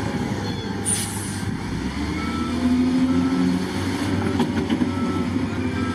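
SDLG L956H wheel loader's diesel engine running steadily under load as its bucket pushes stone and dirt, with a brief hiss about a second in.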